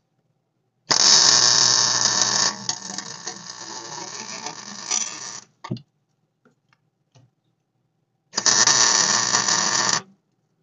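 Electric welding arc crackling in two bursts, the first about four and a half seconds long and the second about a second and a half, each starting and stopping abruptly: a weld being laid to fix a nut onto a broken exhaust manifold bolt stub in the cylinder head.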